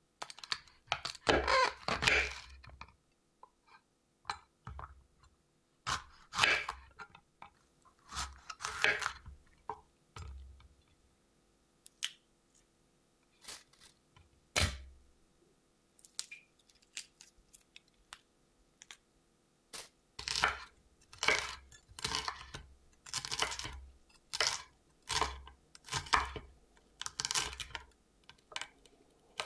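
Chef's knife cutting a green bell pepper on an end-grain wooden cutting board: crisp crunching cuts, each with a dull knock of the blade on the wood. The cuts are irregular at first, then come as a steady run of slices about one a second.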